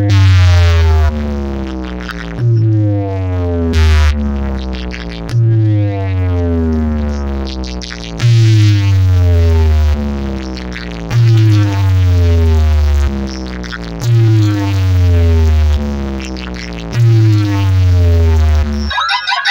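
Electronic music blasting from a tall DJ loudspeaker stack: a repeating pattern of heavy bass hits, each with a falling synth sweep, about every three seconds. The pattern cuts off just before the end.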